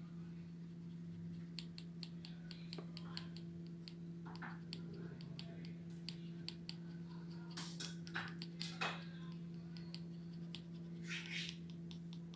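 Chihuahua breathing fast, heard as a quick run of faint clicks at about three or four a second and a few short breathy snuffles, over a steady low hum.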